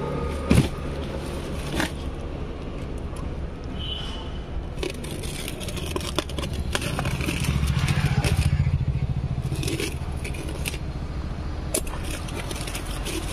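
Plastic stretch wrap and packing tape being pulled and torn off a wrapped spoked wheel rim: irregular crackling and scraping. A low steady rumble runs underneath and grows louder about eight seconds in.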